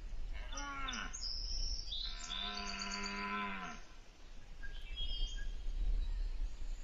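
Deer calling twice: a short low call that falls in pitch about half a second in, then a longer call of about a second and a half, starting about two seconds in, held at a steady pitch and dropping at the end. Birds chirp faintly in the background.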